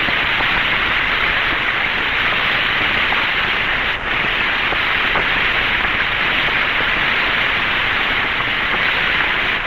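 Steady radio static hiss on the 1962 Friendship 7 capsule voice recording, with a brief dip about four seconds in.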